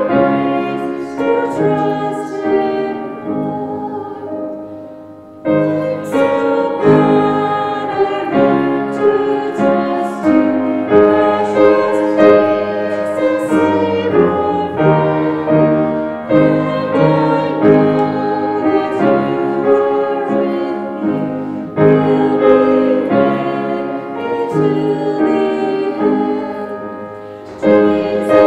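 A hymn with piano and singing voices. The phrases pause briefly about five seconds in and again near the end.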